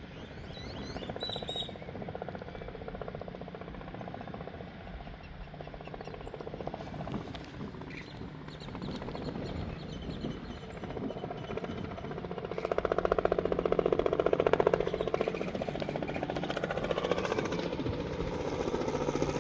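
Helicopter approaching to land, its rotor beat growing louder and loudest about two-thirds of the way in.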